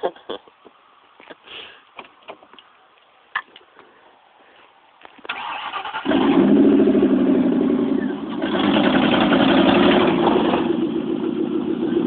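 Lincoln Town Car's V8 engine cranked and catching about five seconds in, then running with the revs raised for a couple of seconds before settling. A few short knocks and clicks come before the start.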